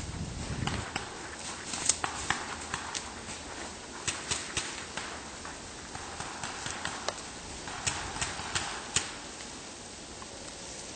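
Footsteps crunching through dry leaf litter in the woods, with irregular sharp snaps and clicks in small clusters.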